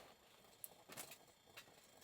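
Near silence, with a few faint, short clicks.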